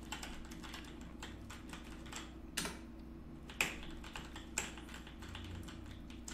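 Typing on a computer keyboard: a steady run of irregular key clicks, with three harder keystrokes about a second apart in the middle.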